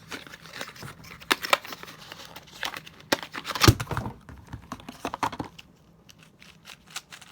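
Packaging being handled as a puzzle cube's box is opened: crinkling and rustling with scattered clicks, and one sharper knock about three and a half seconds in.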